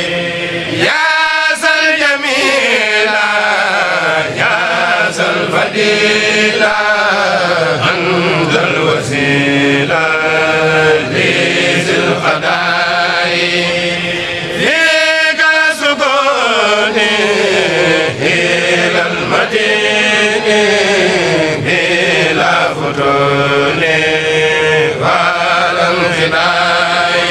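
Voices of a Mouride kourel chanting an Arabic devotional poem (khassida) in long, gliding melodic phrases, with short breaks between phrases about a second in and near the middle.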